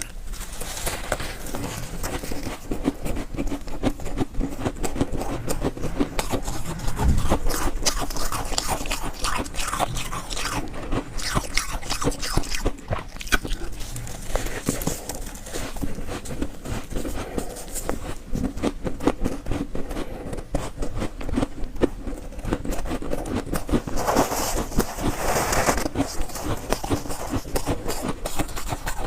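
Soft, fluffy shaved ice being bitten and chewed, with dense, rapid crunching and crackling throughout.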